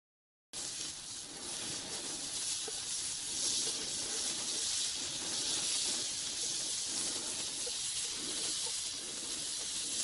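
Salo (cured pork fat) sizzling steadily in a frying pan on a gas camping stove, with scattered small crackles. The sound cuts in suddenly about half a second in.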